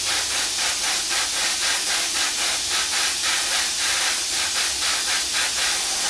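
Airbrush spraying bright silver paint onto an alloy wheel: a steady hiss of compressed air pulsing about three or four times a second.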